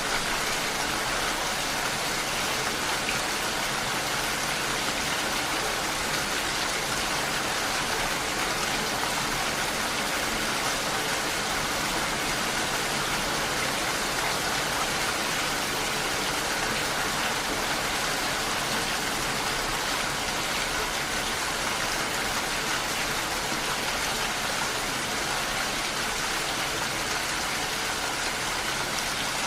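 Rain falling steadily on window glass, an even hiss with no breaks or changes.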